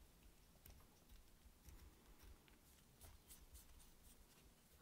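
Near silence, with faint scratchy clicks from hand work on a rifle scope base.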